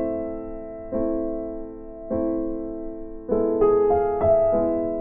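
Background piano music: slow chords struck about once a second and left to fade, with a quick run of notes a little past the middle.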